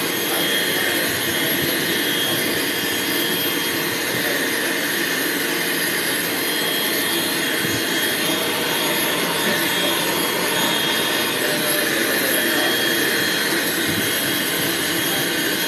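Dog grooming dryer blowing steadily: a constant, even rush of air.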